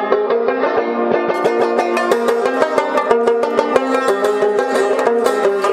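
Rabab music: a plucked lute playing fast, steady runs of notes over a sustained ringing drone.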